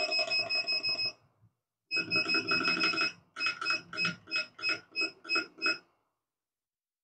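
Music: a rhythmic run of short repeated bright electronic notes, with a brief break about a second in, ending about six seconds in.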